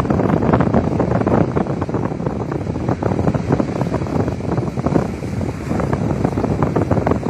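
Strong wind buffeting the microphone in a rough, fluttering rush, with the sea's surf washing on the shore beneath it.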